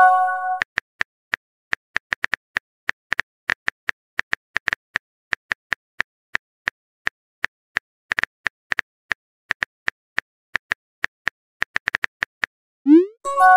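Simulated smartphone keyboard clicks, one for each key tapped as a message is typed out, at about two to three taps a second. A short rising 'bloop' with a brief chime marks a chat message popping up, once at the very start and again near the end.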